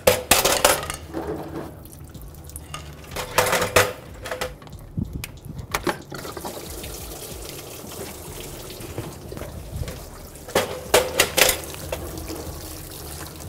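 Engine coolant draining from a pickup truck's radiator with the lower hose off, running as a steady stream into a plastic drain pan. A few clusters of knocks and rattles come at the start, around three and a half seconds in, and again near eleven seconds.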